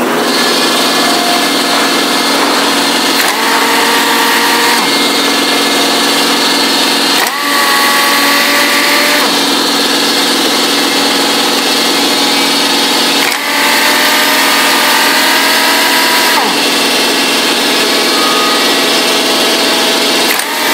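Ingersoll Rand air impact wrench running free with no load: a steady whine over the hiss of exhaust air. About four or five times it briefly drops out and comes back at a different pitch as the red power and direction knobs on the back of the tool are turned.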